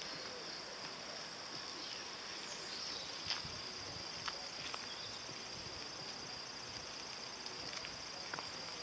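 Steady high-pitched insect buzz, like crickets, over quiet outdoor background noise, with a few faint clicks.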